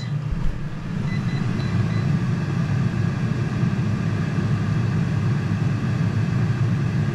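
Cosori Dual Blaze TwinFry air fryer running mid-cook: its fan gives a steady low hum. A few faint short beeps from the touch panel come about a second in, as cooking time is added.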